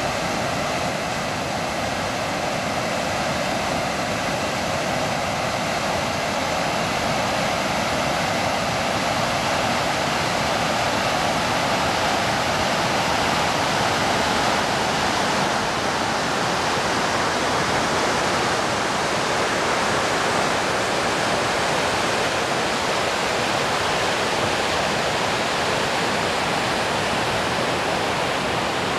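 Waterfall cascades pouring over granite ledges into a river pool: a loud, steady rush of falling water.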